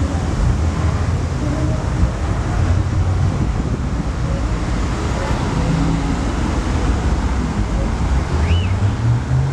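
Steady low rumble of wind buffeting the microphone, mixed with the wash of street traffic; a short chirp near the end.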